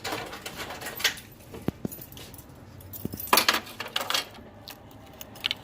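Irregular clicks, clinks and rattles of small hard objects being handled, with the loudest cluster about three and a half seconds in.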